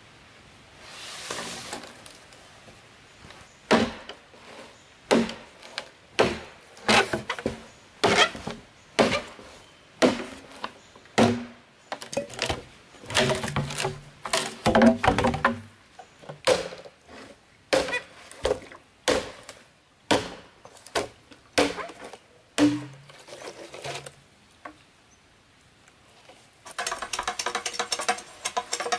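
A long knife chopping into a green bamboo pole: sharp, woody strikes about once a second, with a stretch of creaking and cracking midway as the pole is worked apart at the notch. Near the end comes a quick run of light tapping and cracking on the bamboo.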